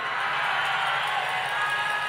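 A rally crowd cheering and shouting in a steady wash of noise, answering the speaker's question. A thin, high, held tone joins about one and a half seconds in.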